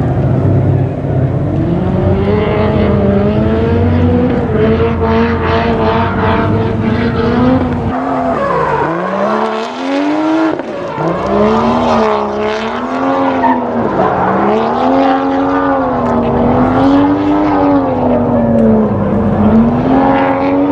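Drift car's engine revving up and down under constant throttle changes as the car slides through a corner, with tyre squeal. About nine seconds in, the revs drop sharply and then climb again.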